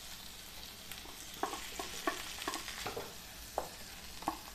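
A spoon clinks against a steel bowl about seven times as cooked dal is scraped out into a pan. Under it, the tomato-and-spice masala sizzles steadily in the oil.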